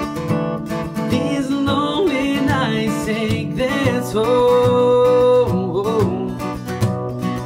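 Acoustic guitar picked and strummed in a country-style song, with a wordless sung line over it that glides about, then holds one long note a little past halfway.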